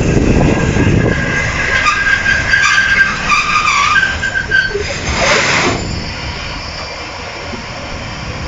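Kanto Railway KiHa 2100-series diesel railcar pulling into a station and stopping. The rumble of the running train is followed by a high brake squeal for a few seconds and a short hiss of air about five seconds in. The diesel then idles quietly at a standstill.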